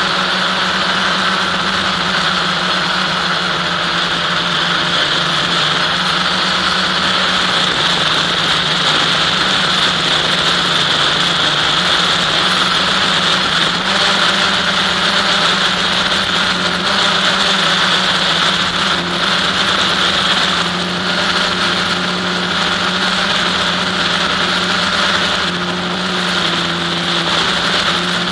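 Steady buzz of an FPV model aircraft's motor and propeller, picked up by its onboard camera, holding one pitch with a constant hiss over it.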